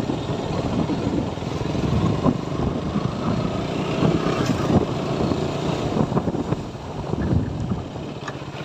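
Two-wheeler engine running while riding along a street, heard from the rider's seat, with wind buffeting the microphone.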